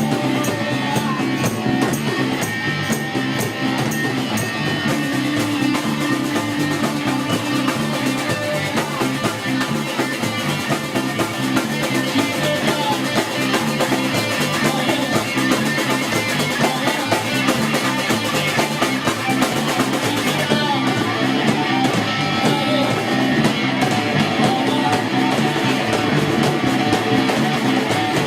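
A rock band playing live, with guitar and a drum kit.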